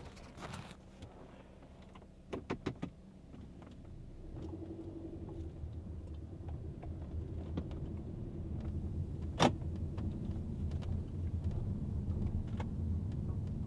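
Cabin of a Honda Stepwgn minivan heard from the second-row seat as it pulls away and drives: a few quick clicks about two and a half seconds in, then a low rumble of engine and road noise that builds and holds. There is one sharp click or knock around the middle.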